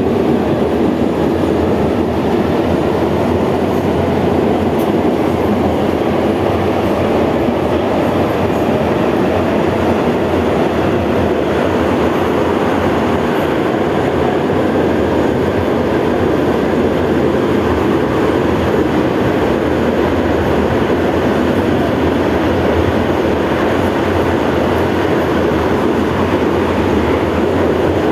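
Cabin running noise of a 71-154 (LVS-2009) tram travelling through an underground tunnel: a loud, steady rumble of wheels on rail and running gear that does not let up.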